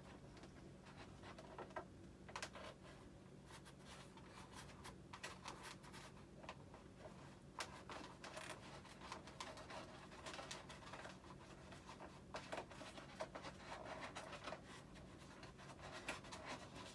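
Faint scratching, rubbing and small irregular clicks of a hand working on the foam tail of a Freewing F-35 model jet, fitting the vertical fin and feeding its servo lead through, over a low steady hum.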